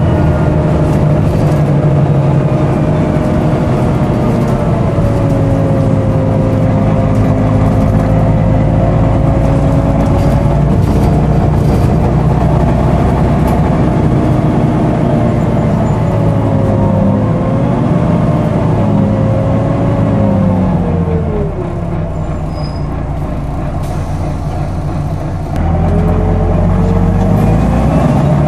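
Volvo B9TL double-decker bus under way, heard on board: its diesel engine running with the whine of its loud cooling fan on top. The whine and engine fall in pitch as the bus eases off, go quieter for a few seconds, then climb again sharply as it pulls away near the end.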